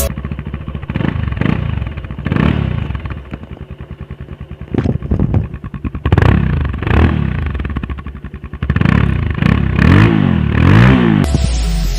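Bajaj Pulsar 220's single-cylinder engine running through its stock silencer, with the dB killer still fitted before the modification. It idles, and the throttle is blipped again and again, each blip a quick rise and fall in pitch. The blips come closer together and go higher near the end.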